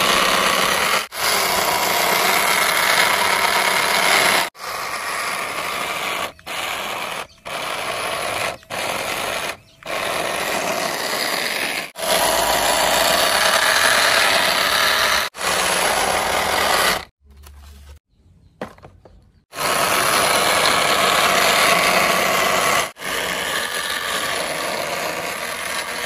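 A small electric motor running with a dense, steady buzz, cut off abruptly many times in quick succession, with a quieter gap of about two seconds past the middle.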